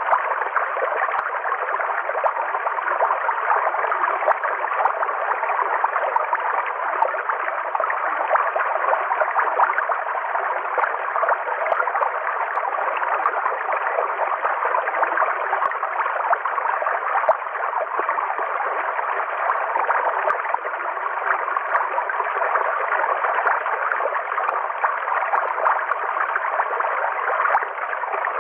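River water flowing steadily, an even, unbroken rush of running water.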